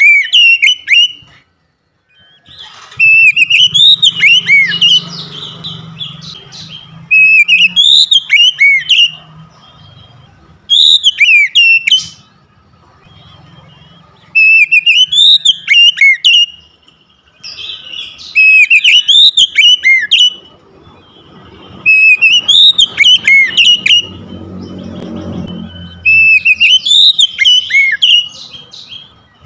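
Oriental magpie-robin (kacer) singing: about eight bursts of loud whistled song, each a second or two long with quick rising and falling notes, separated by short pauses.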